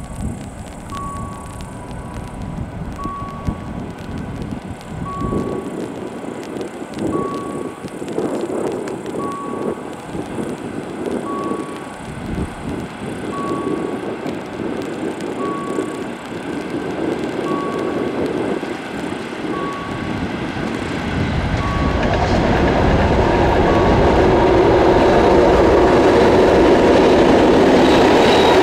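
Level-crossing warning signal beeping, one short beep roughly every two seconds. From about 22 seconds in, a 2M62M diesel locomotive hauling freight wagons draws near and grows steadily louder, covering the beeps near the end.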